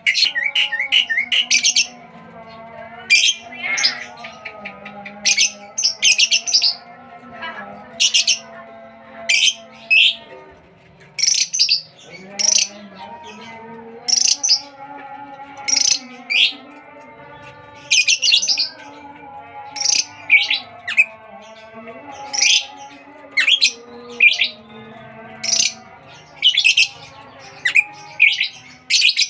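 Birds chirping: sharp, high chirps in short bursts every second or two, with fainter steady tones underneath.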